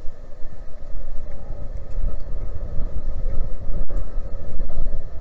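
The Viking Polaris expedition cruise ship passing close by: a steady machinery hum over an uneven low rumble.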